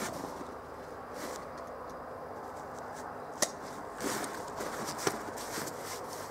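Fabric rifle drag bag being handled, with soft rustling and a sharp click about halfway through, then a smaller click about a second later.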